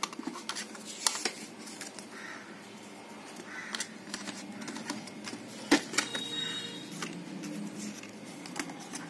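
Irregular light clicks and taps from handling a smartphone and its cardboard box and paper inserts, with two sharper knocks, one about a second in and a louder one just past the middle.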